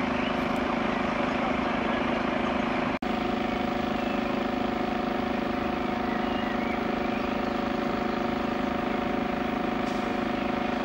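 Engine of a dump truck with a loader crane running steadily, a constant hum with a few held tones. It drops out for an instant about three seconds in.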